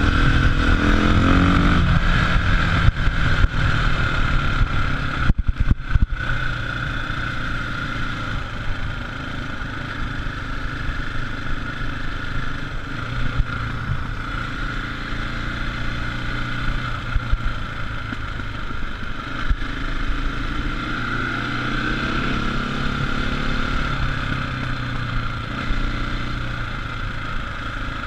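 KTM dirt bike engine running on a road ride; its pitch falls as it slows over the first couple of seconds, then it runs steadily at lower revs. The sound cuts out briefly about five to six seconds in.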